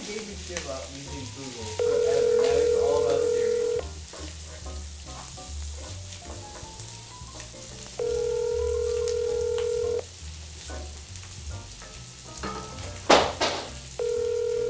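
Phone ringback tone over a speakerphone: a steady two-second ring, three times about four seconds apart, with no answer. Food sizzles in a skillet throughout, and a sharp knock sounds near the end.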